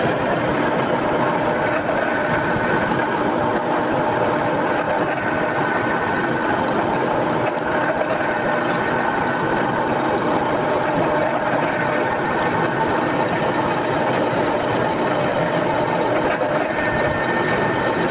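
A power tool's motor running steadily while cutting the metal centre pin for a bag wheel.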